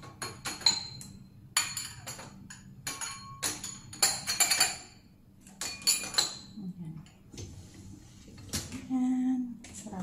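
Wine glasses clinking against one another and the wire rack of a dishwasher as they are set into the upper rack one at a time. A run of sharp clinks, some ringing briefly, comes thickest in the first six seconds.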